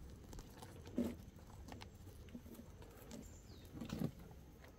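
Faint rustling and light clicks of hands handling a potted pyracantha bonsai as fine shoots are pulled out, with a soft thump about a second in and another near the end.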